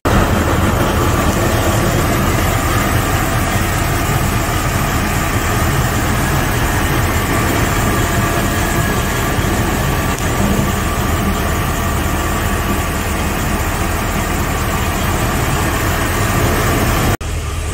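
Chevrolet pickup truck's engine idling steadily, heard close up from the open engine bay, with a steady hiss over the low running sound; it breaks off for an instant near the end.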